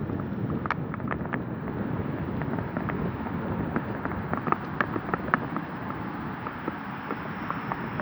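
Wind buffeting a smartphone's built-in microphone while riding a mountain bike, a steady low rumble, with irregular small clicks and rattles scattered through it.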